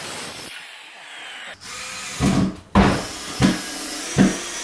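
Cordless drill driving screws into a plywood subfloor in four short bursts of the trigger, each under a second, over the second half.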